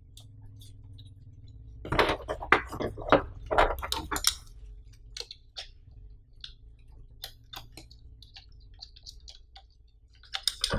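A DSLR being fitted to a double camera harness strap: the strap's metal snap hook clicks and clinks against the camera's mounting plate, amid handling rustle of camera body and nylon strap. A busy run of clicks and rubbing starts about two seconds in, then scattered small ticks follow.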